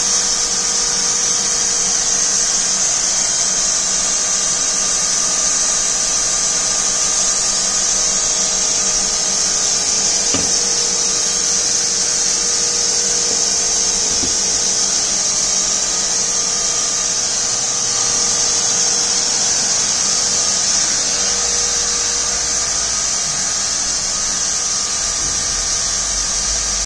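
A 500 litre-per-hour reverse osmosis water plant running: a steady machine hiss with a faint motor hum from its pump and the water flowing through it.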